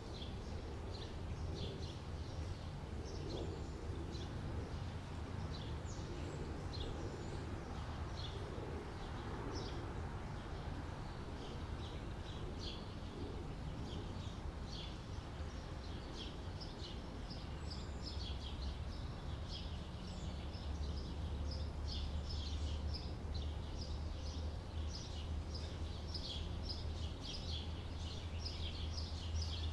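Outdoor summer ambience: many small birds chirping in quick, short calls, growing busier in the second half, over a steady low rumble.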